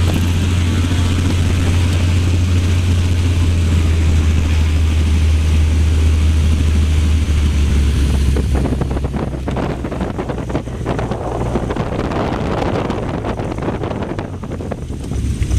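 Cessna 185's piston engine and propeller running at taxi power, heard from inside the cabin as a steady low drone. About eight seconds in, wind rushing and buffeting through the opened side window joins the drone and takes over, while the drone itself grows a little quieter.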